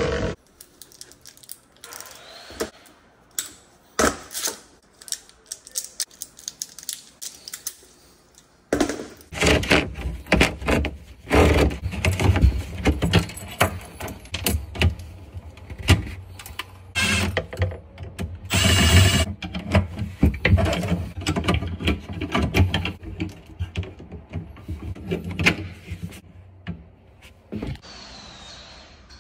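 Flexible metal armored cable rattling and scraping as it is fed through a hole in a cabinet and handled, with many metallic clinks and knocks against the cabinet wood, busiest in the middle stretch.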